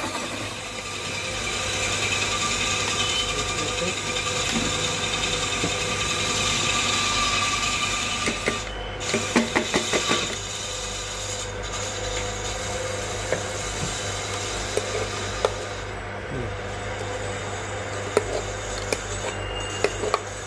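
Stainless steel mixer-grinder jar and lid being handled and thick lemon paste scraped with a spoon, over a steady background hum, with a quick run of knocks and clicks about nine seconds in.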